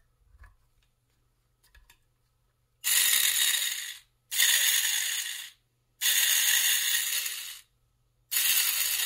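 Small DC gear motor salvaged from a Ryobi P737 cordless inflator, run with its pump removed as its leads are touched to a battery pack. It gives four short bursts of high whirring with gear chatter, each about a second and a half long, starting about three seconds in. A few faint clicks of handling come before the first burst.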